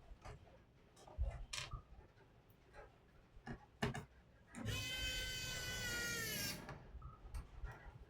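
Scattered light clicks and knocks of hands and tools working on a laptop, and about five seconds in a loud drawn-out animal cry lasting about two seconds, its pitch falling slightly.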